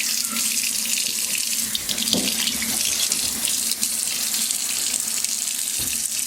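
Water running steadily from a tap into a sink, a continuous hiss, with a few faint knocks and splashes.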